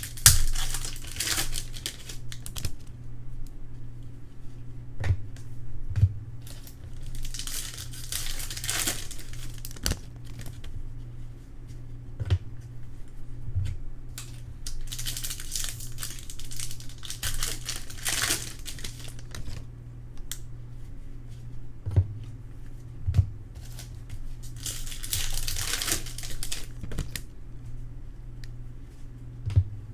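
Trading-card pack wrappers being torn open and crinkled in four bursts of rustling, with light clicks and taps between them as the cards are handled. A steady low hum runs underneath.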